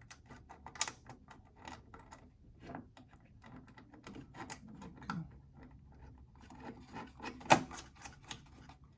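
Small metal screws being driven back in with a 3 mm Allen wrench while the control panel is refitted in an industrial label printer: a scatter of light clicks and taps of tool, screw and plastic, with one sharper knock about seven and a half seconds in.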